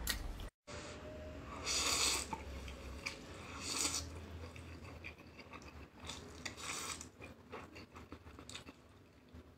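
A person eating noodles: a few short, loud slurps, about a second and a half in, near four seconds and again near seven seconds, with smaller wet chewing sounds between.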